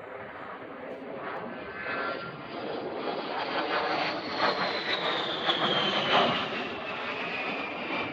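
A-10 Thunderbolt II's twin TF34 turbofan engines on a pass. The jet noise builds to its loudest about six seconds in, and a high whine falls steadily in pitch as the jet goes by.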